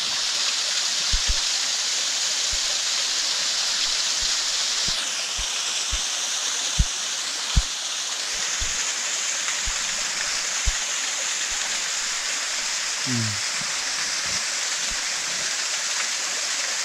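Small forest waterfall splashing down a rock face onto a stony stream bed: a steady rush of falling water, with a few brief low thumps at intervals.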